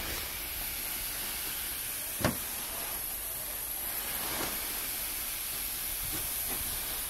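Steady hiss of air flowing into an inflated air-fed chemical pressure suit, with one sharp knock about two seconds in.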